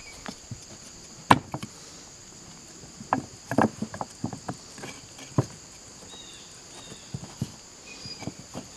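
Irregular clicks and knocks of a throttle control cable and the plastic and metal parts of an outboard remote control box being handled and fitted, with one sharp knock just over a second in and a quick cluster around the middle. A steady high chirring of crickets runs beneath.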